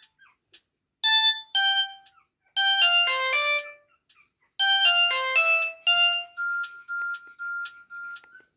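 Samsung E1150 mobile phone ringtone playing: a melody of bright electronic notes. Two single notes lead into two quick runs of notes, and then a string of short beeps on one pitch, about three a second, closes the phrase near the end.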